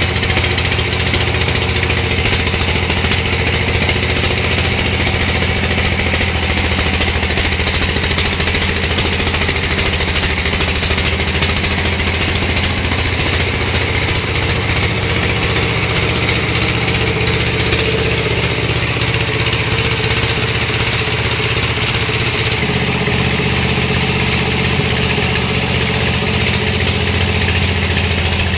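Sawmill machinery running steadily: a continuous engine-like drone, its low hum shifting slightly in pitch about two-thirds of the way through.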